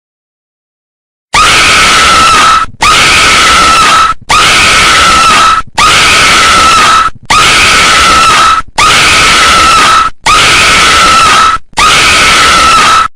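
A demonic possessed-girl scream sound effect, rasping and held on one high pitch. It is very loud and repeats eight times, one scream about every second and a half, after a second of silence.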